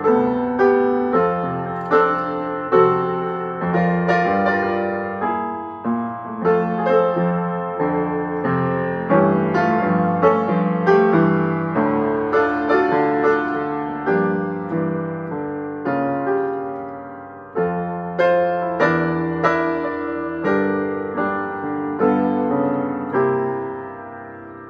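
Solo upright piano played, a continuous run of notes and chords, each struck and left to fade, with a short quieter phrase ending about two-thirds of the way through before the playing carries on.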